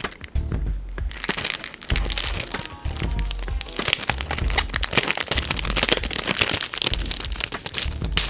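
Plastic packaging crinkling and crackling as it is handled and torn open, over background music with a low pulsing bass.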